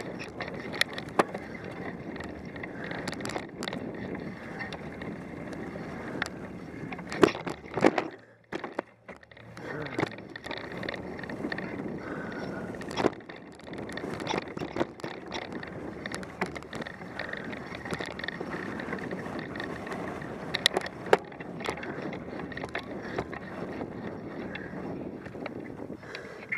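Mountain bike rolling along a dirt trail covered first in dry leaves, then in thin snow: a steady rolling and rattling noise with sharp knocks as the bike goes over bumps. It goes nearly quiet for about a second, eight seconds in, after a few loud knocks.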